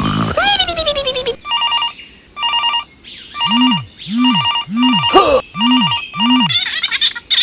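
Electronic phone-like ringing: short bursts of trilling beeps repeated about every half second, several times. It comes after a gliding, pitched squeal in the first second and a half.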